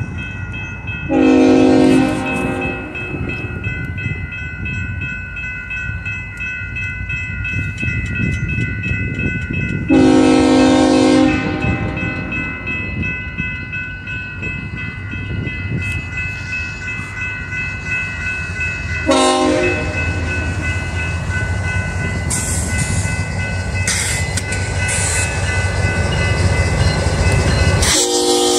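Freight train's multi-chime air horn sounding the grade-crossing signal of long, long, short, long, the last blast starting near the end, from GE Tier 4 GEVO diesel locomotives leading a BNSF intermodal train. The locomotives' diesel rumble grows louder as they approach, and a bell rings steadily underneath.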